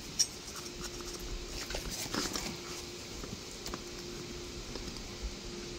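A sharp click about a quarter second in, then a cluster of light clicks and rustling around two seconds in, over a faint steady hum.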